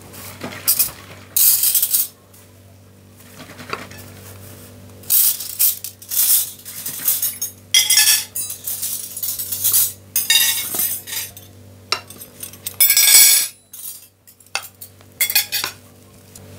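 Large kitchen knife cutting through the crisp, golden crust of a baked tahchin (Persian saffron rice cake) on a ceramic platter: a series of crunching cuts a few seconds apart, the blade scraping and knocking on the plate.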